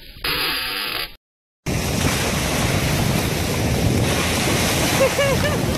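Small waves breaking and washing on a beach, with wind buffeting the microphone, after a second of hissing noise and a brief dropout. A few short squeaky sounds come about five seconds in.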